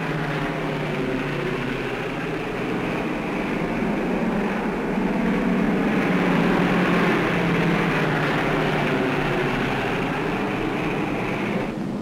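Boeing B-29 Superfortress bomber's four piston radial engines running at takeoff power: a steady, dense drone that grows a little louder in the middle and turns duller just before the end.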